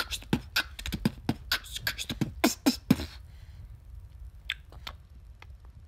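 A man making a quick string of beatbox-style mouth pops and clicks for about three seconds, then only a few scattered clicks.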